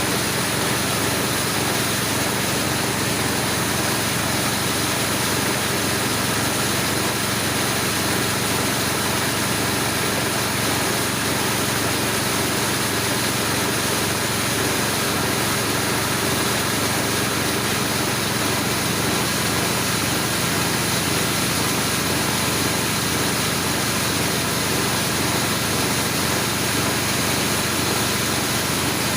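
Home-assembled corn grinding mill running steadily, with a constant loud mechanical hum that does not change.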